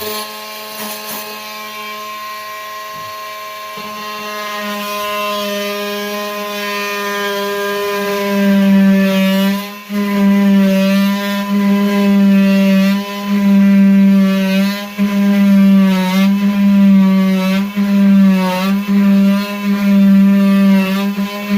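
Oscillating multi-tool running with a steady buzzing hum as it cuts through drywall. It gets louder about eight seconds in as the blade bites into the wall, and its pitch sags briefly several times as the blade loads up in the cut.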